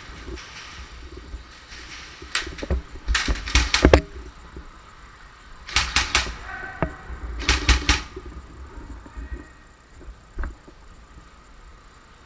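Airsoft guns firing in short bursts of sharp cracks: a single shot, then three bursts of rapid shots over the next several seconds, with one more lone crack later.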